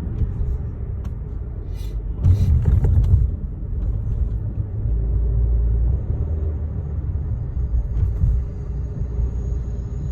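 Engine and road rumble of a 2013 Chevrolet Sonic heard from inside the cabin while driving, running smoothly with no misfire for now. About two seconds in there is a brief louder rush.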